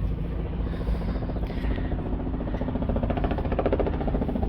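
An engine running steadily with a fast, even firing rhythm, which grows louder over the last couple of seconds.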